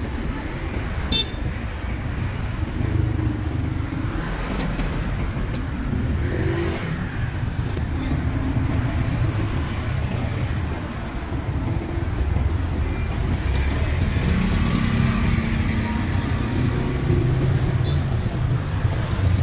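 Street traffic: motor vehicle engines running and passing in a steady rumble.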